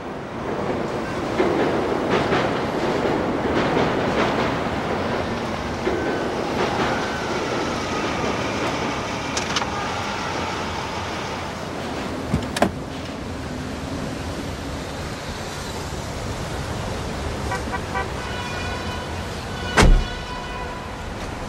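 Commuter train crossing a steel truss bridge: a steady rumble with rapid wheel clatter in the first few seconds. A sharp knock comes about halfway through, and near the end a loud heavy thump of a car door being shut.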